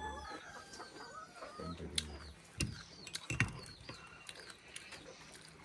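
Small birds chirping and chickens clucking faintly, with a few sharp clinks in the middle from a metal spoon against a ceramic mug.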